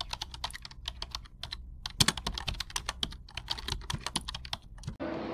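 Typing sound effect under an on-screen caption: a rapid, irregular run of key clicks, with a brief pause just before two seconds in and one louder strike at about two seconds.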